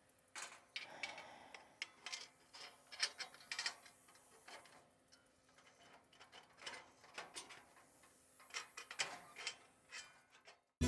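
Faint, irregular clicks and light clatter of roll-away laying box parts being handled and fitted together during assembly.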